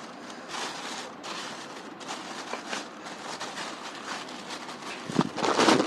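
Rustling and small crackling clicks of a satellite speaker and its cable being handled, with a louder rustle about five seconds in.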